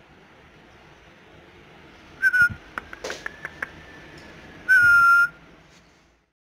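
Two high whistles, a short one about two seconds in and a louder, longer, steady one around five seconds in, with a few sharp clicks between them.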